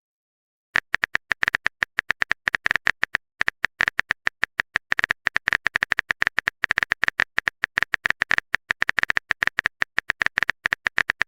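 Text-message typing sound effect: rapid, uneven keyboard clicks, several a second, starting about a second in.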